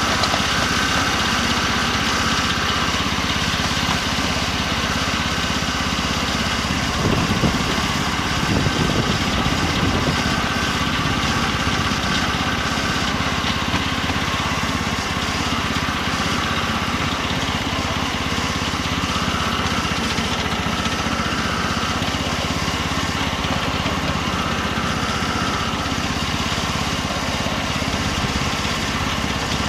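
Small engine of a 7¼-inch gauge BR Class 03 outline miniature locomotive running steadily as the loco travels along the track, with a briefly louder low rumble about seven to nine seconds in.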